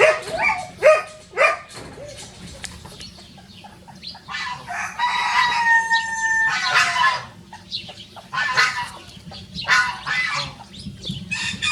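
Rosecomb bantam rooster crowing once midway, a long high crow held steady and dropping at its end, with short clucking calls before and after it.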